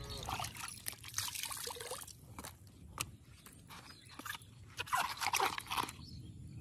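Small splashes, trickles and drips of water with irregular scrapes and crunches, as a foam clog is dipped into floodwater and rubbed against a concrete edge.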